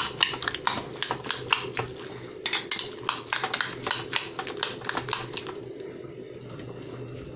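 A spoon clicking and scraping against a glass bowl while guacamole is stirred, several quick clicks a second, easing off after about five seconds. A steady low hum runs underneath.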